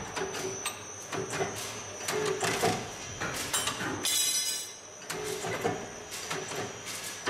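Industrial machine with a rotating arm running: repeated clattering knocks and clicks over an on-and-off hum and a faint steady high whine, with a brief hiss about four seconds in.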